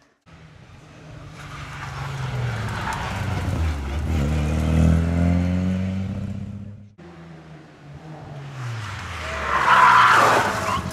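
Two rally cars going by in turn. First a Renault Clio rally car's engine builds and rises in pitch as it approaches and passes. After a sudden cut, a Peugeot 205 rally car's engine comes up hard through the corner, loudest about ten seconds in.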